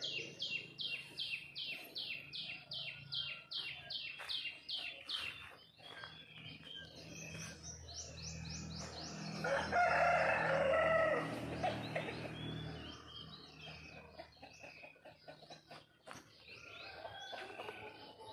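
A rooster crows once, about ten seconds in; it is the loudest sound. Before it, a bird repeats a quick run of high, falling chirps, about three a second, for the first five seconds, and other birds call on and off.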